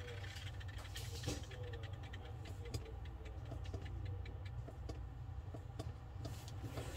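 Low steady electrical hum with faint ticking, about three clicks a second, from a Volvo VNL truck instrument cluster powered up on a test bench while its gauge needles sweep.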